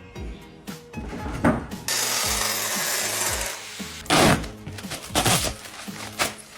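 A power tool cutting through a panel, a steady hissing cut of about a second and a half, followed by several loud knocks as the pieces are handled and fitted.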